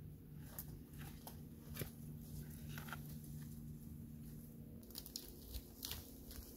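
Faint, scattered crackles and rustles of dry leaves and twigs being stepped on and handled, over a faint steady low hum.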